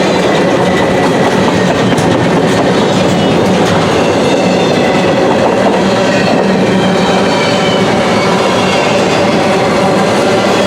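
Freight train cars rolling past close by: a steady rumble of steel wheels on rail, with clicks of the wheels over rail joints.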